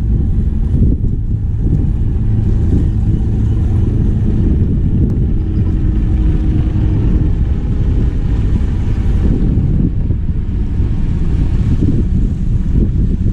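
Wind buffeting the microphone: a steady, loud low rumble, with a faint hum running underneath.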